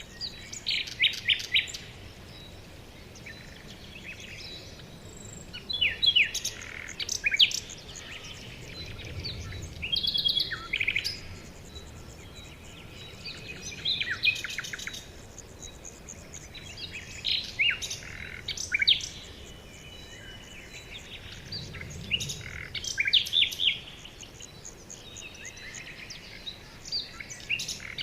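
Songbirds chirping in short bursts of quick, high notes every few seconds, over a soft steady background.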